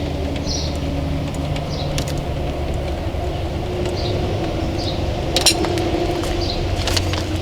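A vehicle engine running steadily, with a few sharp metallic clinks, the loudest about five and a half seconds in.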